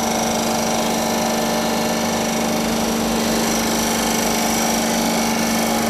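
CNC engine-block machining center running steadily, its fly cutter decking an engine block: an even machine hum with several held tones over a rough cutting hiss.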